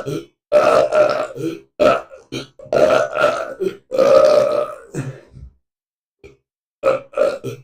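A person burping over and over, a string of loud belches with some longer drawn-out ones in the first few seconds. After a short pause near the end, several quick short burps follow.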